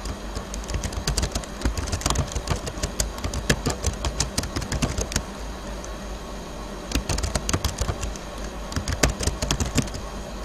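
Computer keyboard being typed on: quick runs of key clicks, with a pause of about a second and a half midway, over a low steady hum.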